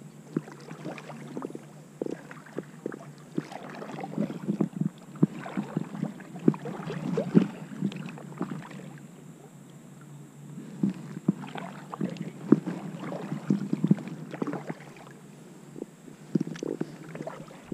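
Kayak paddle strokes: the blades dipping and pulling through the water with splashes, swishes and drips, coming in irregular runs with a couple of short lulls.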